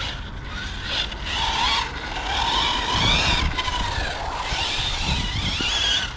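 Electric brushless 1/10 RC car driving, its motor whine rising and falling several times as it accelerates and slows.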